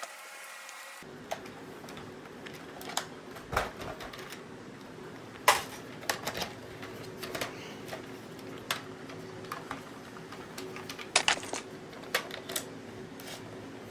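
Irregular sharp clicks and clacks of an airsoft L96A1 sniper rifle's hard plastic and metal parts being handled, with a loud clack about five and a half seconds in and a quick run of clicks around eleven seconds.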